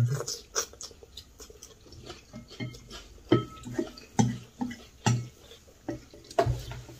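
Eating at the table: rice vermicelli slurped and chewed, with chopsticks clicking against bowls, in a run of irregular short sounds.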